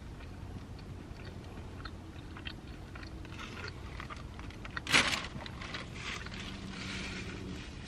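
Close-up chewing of a mouthful of Cajun chicken pasta, with small wet mouth clicks. A single loud, sharp noise comes about five seconds in, followed by a soft hiss.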